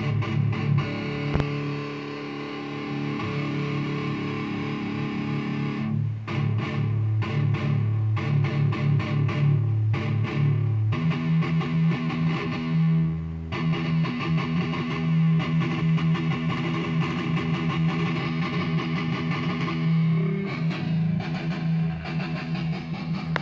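ESP electric guitar played through a Roland Cube 30X amp on its lead channel. Held notes, with a passage of fast picked notes about six seconds in.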